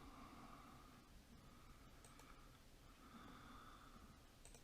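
Near silence with a few faint clicks of a computer mouse.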